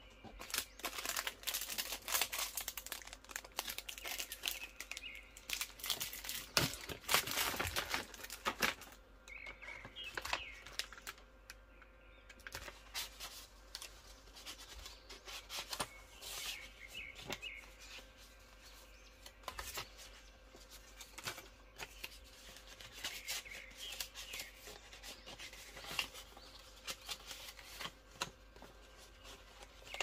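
Paper rustling and crinkling as greeting cards, envelopes and paper gift bags are handled, busiest in the first third. A bird chirps briefly in the background every several seconds.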